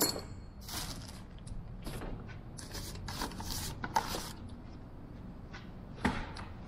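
Thin plywood sheets being handled and shuffled: a string of short, irregular scrapes and rubs of wood on wood.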